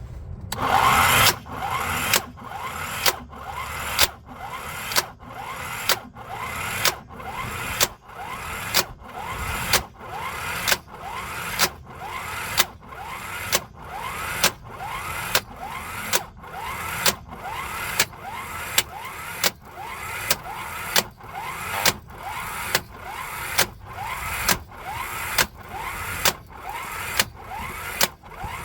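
Impact wrench running continuously on a V6 crank pulley bolt, with a sharp loud hit about once a second and a rising whine between hits.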